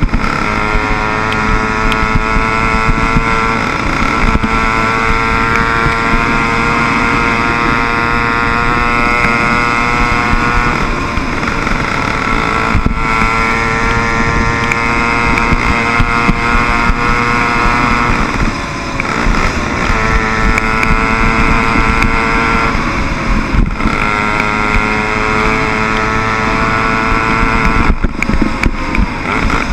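Small 60/80cc motorbike engine running as it rides along, over a rushing haze of wind on the microphone. Its steady note drops away and comes back several times, then falls off near the end.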